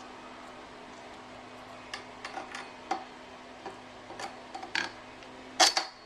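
Irregular light clicks and knocks of hard parts being handled, likely pieces of the newly unboxed scooter, getting busier in the second half with the loudest knock near the end, over a faint steady hum.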